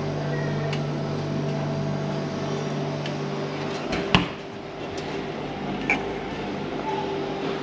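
Self-serve beer and drink machines humming steadily. About four seconds in there is a sharp click and the lower part of the hum cuts off, with a lighter click near six seconds.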